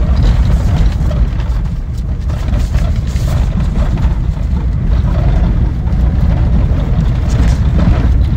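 Steady low rumble and jostling of an electric Tesla Cybertruck driving fast over a bumpy dirt track, heard from inside the cab, with scattered knocks.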